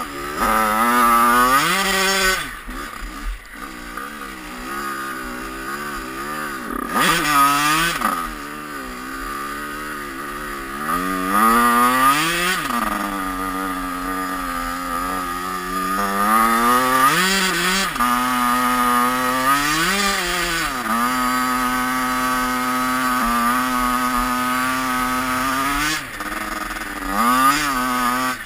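2003 Yamaha YZ85 two-stroke dirt bike engine being ridden, revving up sharply and dropping back again and again, with a few steadier stretches at a constant speed in between.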